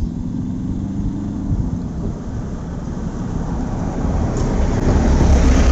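Road traffic: a motor vehicle's engine running as it comes near, its noise swelling from about four seconds in, over a steady low rumble.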